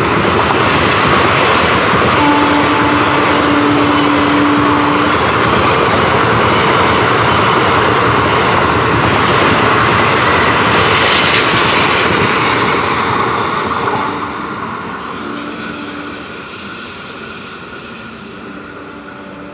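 Passenger train coaches running through a station at speed without stopping, a continuous loud rush of wheels on rail. A steady horn note sounds for about three seconds a couple of seconds in. From about fourteen seconds in the noise fades away as the train draws off.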